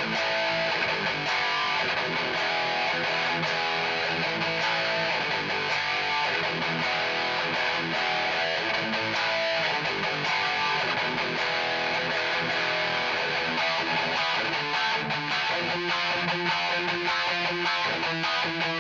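Electric guitar with an EMG 81 active bridge pickup playing metal riffs. It runs through a Peavey 6505 Piranha amp and 1x8 cabinet at high gain, with dense, steady riffing throughout.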